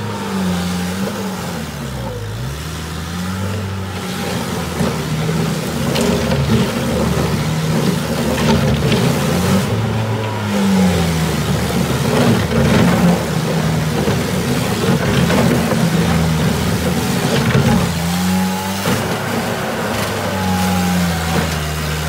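Bobcat 751 skid-steer loader's diesel engine running at working speed while the machine drives and works its bucket. The engine note sags and recovers several times as the load on it changes.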